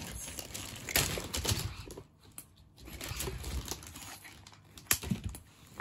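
Hard plastic toy dinosaurs and animals clattering and rustling as they are rummaged through in a pile, with sharp clicks of toy against toy just after a second in and again near five seconds.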